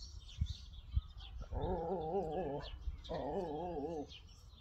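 An animal calling twice, each call about a second long with a steady wavering pitch. Birds chirp faintly behind.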